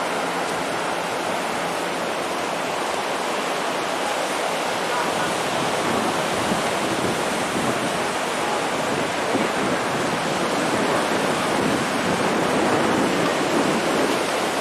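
Ocean surf washing onto the beach: a steady rushing hiss that swells slightly toward the end.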